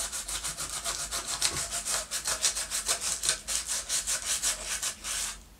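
Sandpaper rubbed back and forth by hand against the bare wood walls of an electric guitar body's control cavity, smoothing them out. Quick, even scratching strokes, about five a second, that stop just before the end.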